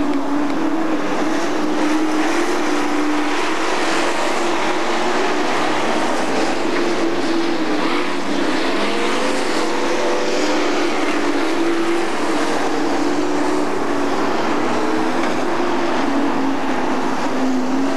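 Several dirt-track super stock race cars running at speed around the oval, their engines droning together. The pitch wavers up and down as they accelerate and lift through the turns.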